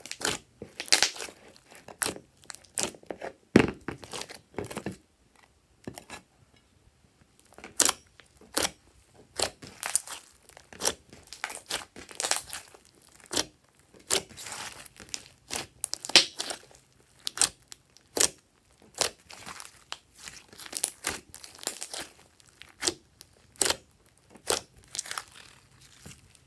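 Hands squishing and kneading glossy slime, an irregular run of sharp wet crackles and squelches several times a second.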